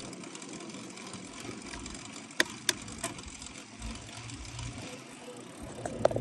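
Bicycle rolling along a tarmac lane: steady tyre and wind noise, with two sharp clicks about two and a half seconds in.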